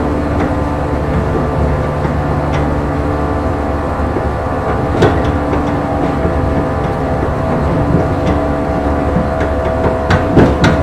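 Running sound of a JNR 115 series electric train heard from inside the motor car: MT54 traction motors and gears (ratio 17:82) humming steadily under the floor at an even speed, with rumble from the wheels on the rails. A sharp click about halfway and a quick cluster of clicks near the end.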